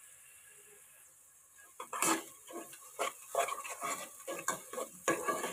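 Chopped onions frying in hot oil in a nonstick saucepan, stirred with a spatula. After a faint sizzle, the spatula starts scraping and knocking against the pan about two seconds in, in repeated quick strokes over the sizzle, as the onions are browned.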